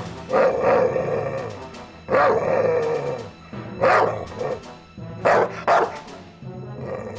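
Music with a dog barking several times at irregular intervals.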